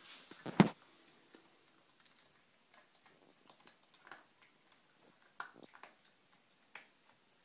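A miniature schnauzer puppy eating from a stainless steel bowl: sparse, irregular small clicks and crunches of chewing and of food against the metal bowl. A single louder knock from the phone being handled comes about half a second in.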